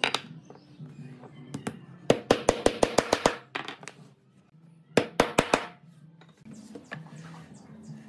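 Hammer tapping a steel ball bearing into the centre hole of a wooden wheel: a quick run of about nine sharp taps, about eight a second, then four more a couple of seconds later, over background music.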